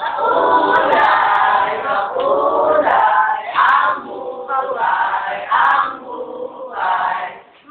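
A group of voices singing and chanting a jingle together in unison, in short phrases broken by brief pauses.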